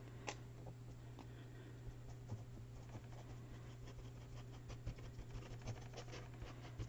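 Faint scattered clicks and light scratching of hands working a squeeze bottle of thick glue over paper, with one sharper click shortly after the start. A low steady hum runs underneath.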